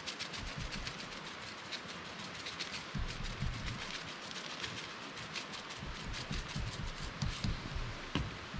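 Seasoning shaker rattling as seasoning is shaken onto a raw beef patty: a fast, irregular run of small clicks that thins out near the end, with a few dull low thumps from handling the patty on the board.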